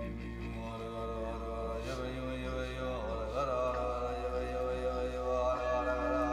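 Background devotional music: a chanted mantra sung over a steady drone, the voice bending in pitch about three seconds in.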